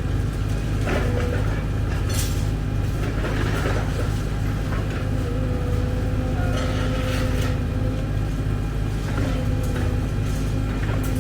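Excavator's diesel engine running steadily under load, with a whine from the hydraulics that wavers slightly in pitch. Several sharp metallic clanks come through it, a couple of seconds in, around the middle and near the end.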